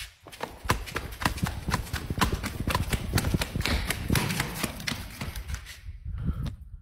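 Quick footsteps on a hard floor, a fast steady run of sharp knocks that dies away near the end.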